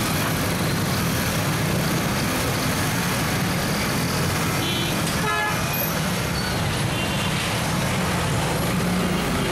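Dense, jammed road traffic: engines idling and crawling with a steady low drone, and vehicle horns tooting briefly a few times near the middle.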